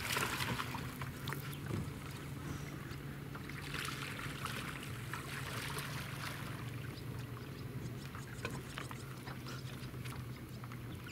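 Water splashing as a hooked largemouth bass thrashes at the surface while being reeled to the boat, in bursts near the start and again a few seconds in, over a steady low hum.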